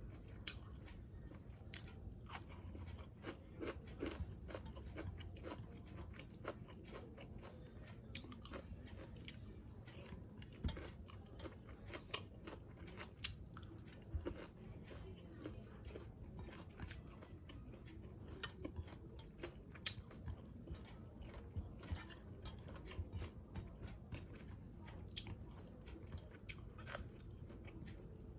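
A person chewing and crunching food close to the microphone, with many short, irregular crunches and mouth clicks.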